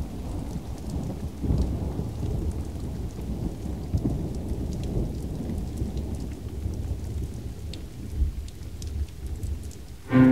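Rain falling with rolling thunder: a continuous low rumble that swells a few times, over a faint patter of drops. Right at the end, bowed strings come in.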